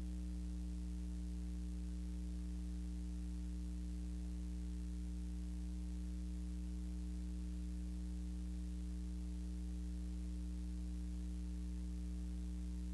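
Steady low electrical hum with a stack of overtones and a constant hiss, unchanging throughout: background noise from the transfer of a silent film, with no other sound.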